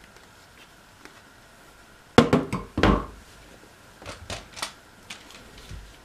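Hard plastic parts of a Makita cordless stick vacuum being handled with the motor off: a quick clatter of clicks and knocks a little over two seconds in, then a few lighter clicks and taps.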